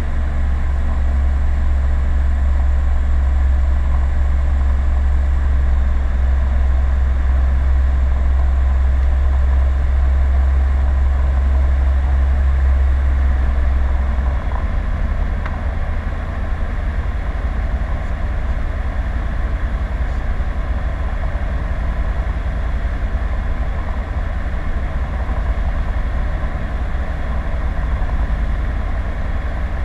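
Rotax 912 engine and propeller of a PS-28 Cruiser light aircraft droning steadily, heard from inside the cabin. The deep rumble drops a little about halfway through.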